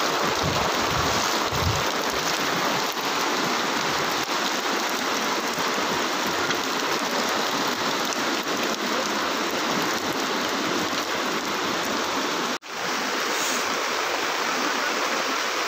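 Floodwater rushing through a swollen drain and over a flooded street: a steady, loud noise of fast-flowing water. A few low thumps come in the first two seconds, and the sound cuts out for an instant about three-quarters of the way through.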